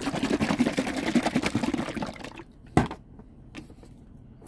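A bottle of salad dressing shaken vigorously, the liquid sloshing in rapid strokes for about two and a half seconds. A single sharp click follows about three seconds in.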